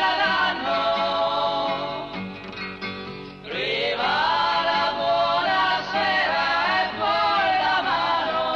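A song playing: a voice sings long, wavering notes over an instrumental backing, with a sliding rise in pitch about three and a half seconds in.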